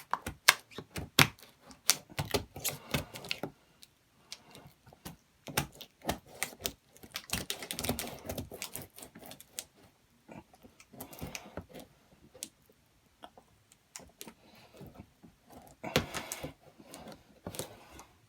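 Cardboard and plastic toy packaging being worked open by hand: irregular sharp clicks and snaps, with a couple of short bursts of rustling.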